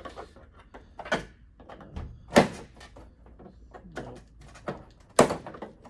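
Plastic back cover of an LG 55UK6470PLC television being pried open with a screwdriver. Its retaining clips pop loose in a few sharp cracks and snaps, the loudest about two and a half seconds in and another near the end, with smaller clicks and rattles between.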